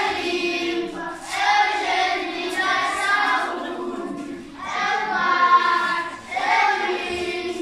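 A group of voices singing together, with no instruments heard, in phrases a couple of seconds long separated by short breaks.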